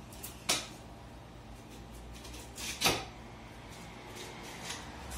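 Two knocks from a lamb carcass section being turned over and set down on a cutting block, one about half a second in and another about two and a half seconds later.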